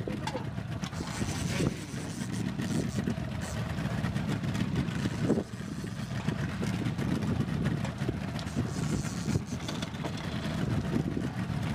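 Twin Mercury 225 outboard motors running steadily on a sport-fishing boat, heard as a constant low, noisy rush.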